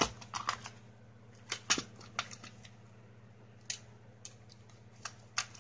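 Clear plastic cassette case being handled and opened: a dozen or so irregular sharp clicks and taps of the plastic, over a faint low hum.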